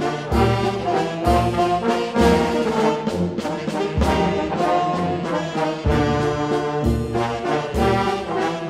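Brass band playing a waltz: held brass chords over low bass notes that recur every second or so.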